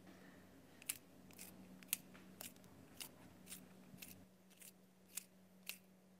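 A run of about ten short, sharp clicks, roughly two a second, against near silence.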